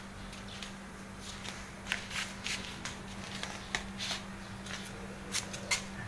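Irregular rustling and sharp clicks of a phone being handled and moved around while filming, over a steady low hum. The clicks come thicker after about two seconds, the sharpest near the end.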